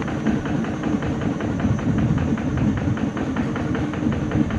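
Long-tail boat's engine running steadily, an even rapid clatter over a low drone.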